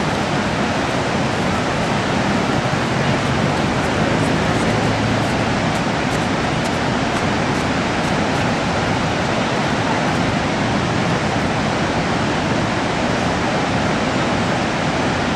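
Steady, loud rush of water from Niagara's Horseshoe Falls, an unbroken wash of noise that does not change.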